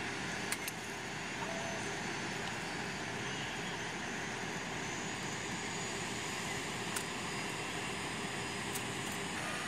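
Steady rush and whine of jet aircraft noise across an airport apron. A couple of light knocks about half a second in: a camera lens dropped by a reporter nearby.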